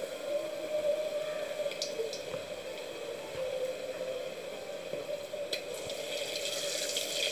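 Battered eggs deep-frying in hot oil in a metal pan: steady sizzling, with a few sharp pops around two seconds in and again past five seconds.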